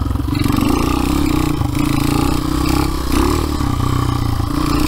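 1995 Honda XR200's single-cylinder four-stroke engine running loud under throttle as the dirt bike sets off on the trail.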